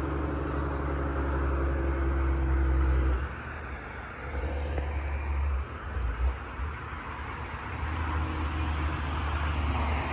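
A motor vehicle's engine running with a low, steady hum. It drops away about three seconds in and comes back near the end, over a steady background hiss.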